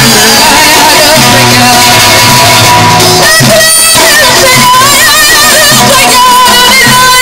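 Loud live Amazigh folk music: a loutar (Moroccan long-necked lute) plucked over bendir frame drums, with singing.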